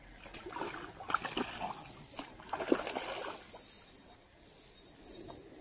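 Irregular water splashing around a landing net as a hooked salmon trout thrashes while being netted, with a couple of sharper splashes.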